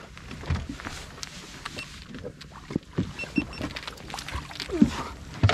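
Irregular knocks and clatter of gear and movement aboard a small fishing boat, with three short high beeps about three seconds in.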